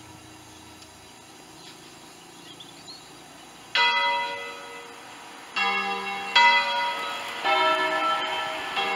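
Church bells of a five-bell ring cast by Pruneri in 1887, tuned to a slightly flat E3, swung by hand on their wheels. A ring dies away for the first few seconds, then five strokes at different pitches follow about a second apart.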